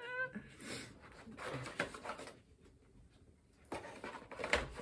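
Packaging being handled and rustled in scattered bursts with a quiet pause midway, opening with a brief high-pitched vocal sound.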